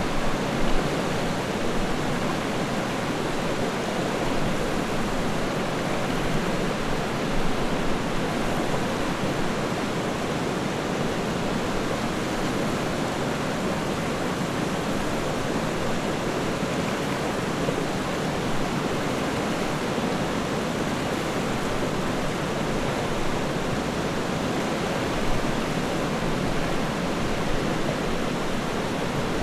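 River water flowing, a steady rushing noise that holds even throughout with no breaks.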